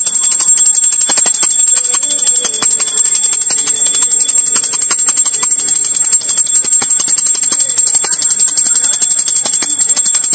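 Small puja hand bell (ghanti) rung rapidly and without pause during aarti, a steady high ringing. Faint voices sit under it.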